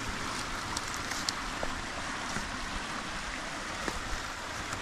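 Steady rush of a rocky stream running low over rocks, with a few faint clicks, likely from footsteps on the rocks.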